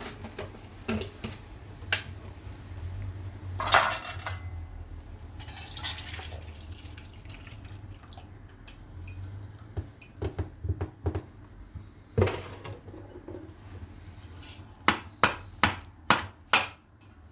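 Kitchen sounds of pancake batter being started: milk pouring into a mixing bowl, then scattered knocks and clatter of dishes, and near the end a run of about five sharp taps against the bowl.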